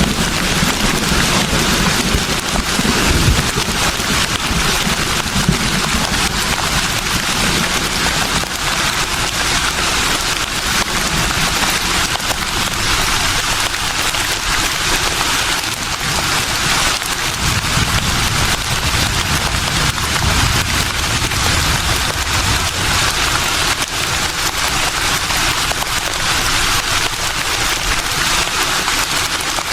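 Breeze blowing through leaves: a steady rustling hiss. Low rumbling gusts of wind on the microphone come at the start and again about two-thirds of the way through.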